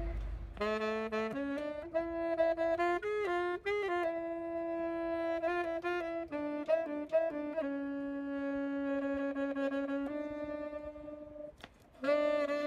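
Solo saxophone playing a slow melody, one note at a time, with several long held notes. It breaks off briefly near the end before the next phrase starts.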